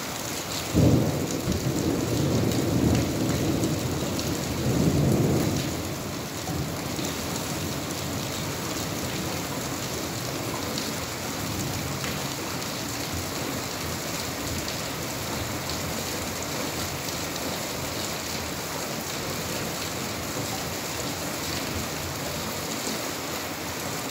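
Steady rain falling. About a second in a clap of thunder breaks and rumbles for about five seconds before dying away, leaving only the rain.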